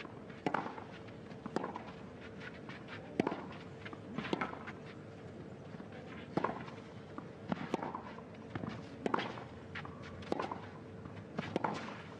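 Tennis rally on a clay court: sharp racket hits on the ball and ball bounces, about one a second, over a faint steady hum.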